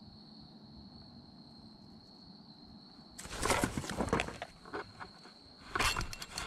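Rustling and knocking of a fishing rod being snatched up and swung to set the hook on a bite, in loud sudden bursts about three seconds in and again near six seconds. A faint steady high-pitched whine runs underneath.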